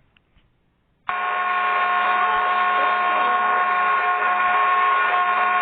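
A wobbly ceiling fan switched on, giving a steady mechanical hum of several held tones. The hum starts suddenly about a second in and holds even throughout.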